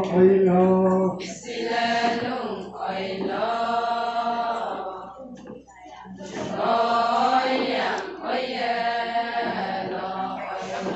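A group of Adi women singing a ponung dance chant together, unaccompanied, in long sung phrases. A held note ends about a second in, and there is a short break in the singing a little past halfway.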